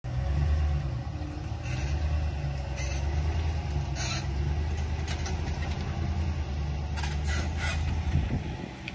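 Pickup truck engine running with a low, steady rumble as it slowly tows a travel trailer, with a few short clicks and rattles; the rumble fades near the end.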